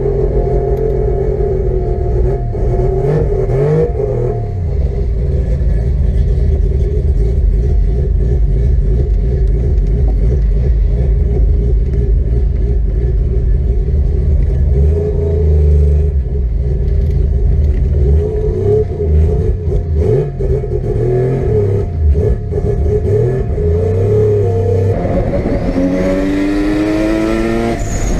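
Rotary-engined car running loud at a steady engine speed, then revving up with the pitch climbing steeply near the end.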